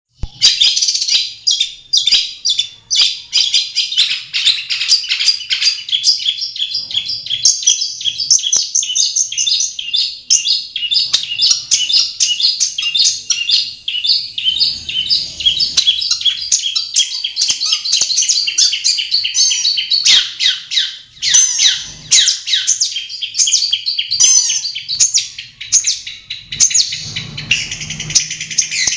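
Long-tailed shrike (cendet) singing without a break, a fast run of short, rapidly repeated notes.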